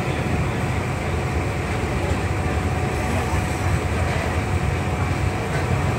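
Steady low rumble of a moving vehicle, with a faint steady whine running through it.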